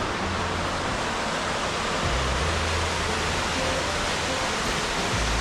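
Waterfall and creek cascade rushing, a steady, even hiss of falling water.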